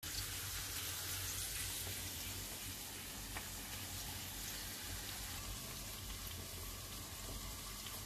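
Eggplant slices and mushrooms sizzling in oil in a frying pan: a steady hiss with a few faint crackles.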